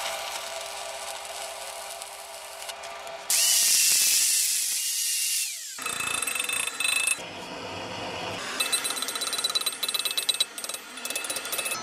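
Metalworking shop sounds in quick succession: a power tool running while sparks fly off steel clamped in a vise, then a loud steady hiss that stops abruptly about six seconds in, then rapid metallic tapping and clinking.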